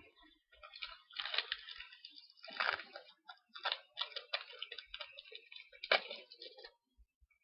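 Thin cardboard trading cards being handled, a stack slid and flicked through in short, uneven rustles and clicks.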